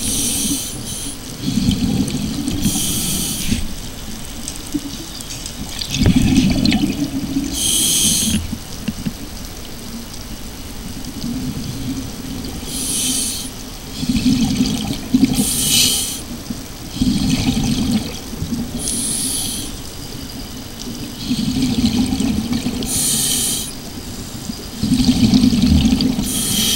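Scuba diver breathing through a regulator underwater: a short, sharp hiss of air on each breath alternates with a longer, low bubbling rumble of exhaled bubbles, repeating every three to four seconds.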